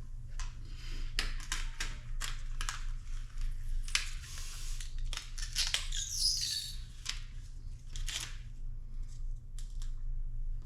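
Vinyl sticker being peeled and scraped off a surface: a run of short scratchy rasps and crackles, with a longer tearing rasp about four to six seconds in, over a steady low hum.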